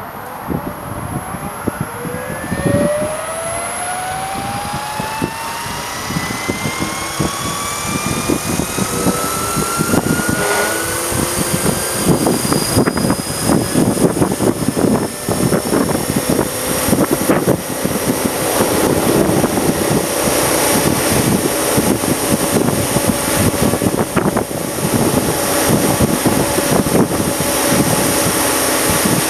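Electric RC helicopter spooling up: the motor and gear whine rises steadily in pitch over roughly the first dozen seconds, then holds steady as the rotor comes up to speed. Gusty wind buffeting runs throughout.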